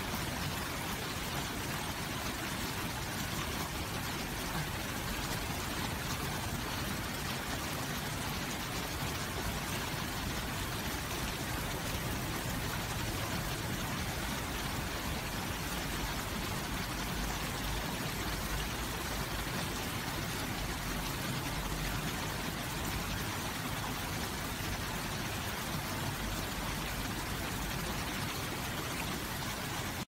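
Water from a garden water feature running in a shallow sheet over stone paving and spilling over a rocky stone edge. It makes a steady, unbroken splashing flow.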